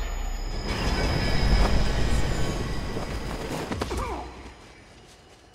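A passing train, its low rumble mixed with a thin steady squeal of the wheels, fading away over the last couple of seconds.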